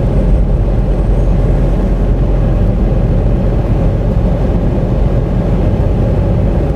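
Cabin noise of a 2017 Ram 2500 Heavy Duty pickup cruising on the highway at about 60 mph under light throttle: a steady low drone of engine, drivetrain and tyres.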